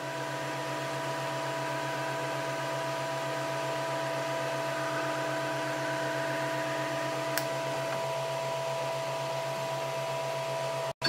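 Flashforge Dreamer 3D printer running with its heated hotend: a steady hum with high, even tones from the extruder motor and cooling fan, as filament is fed through to purge it. A single sharp click comes about seven seconds in.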